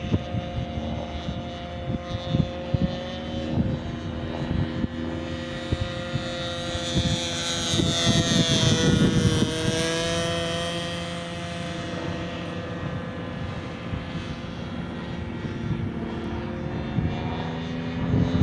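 Radio-controlled Seagull Super Stearman model biplane in flight, its fuel-burning model engine running steadily. It grows louder about halfway through as the model passes close, and the pitch drops as it goes by.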